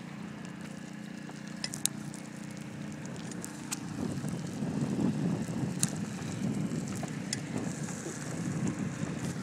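Wind rumbling over the microphone of a camera carried on a moving bicycle, with road noise and a few light clicks and rattles from the bike. The rumble grows louder about four seconds in.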